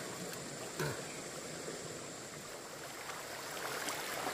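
Stream water running steadily, with one short knock about a second in.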